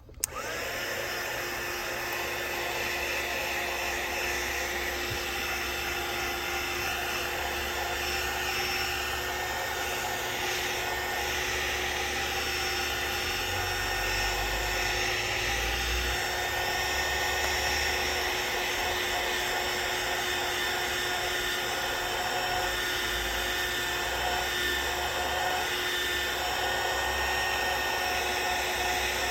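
Heat gun switched on with a click and then running steadily, its fan motor giving a constant whine over a rush of blown air, as it heats a phone's back glass to soften the adhesive.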